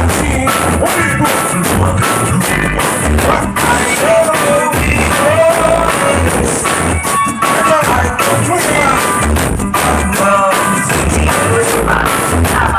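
Loud DJ-played music with a pulsing bass beat and a singing voice.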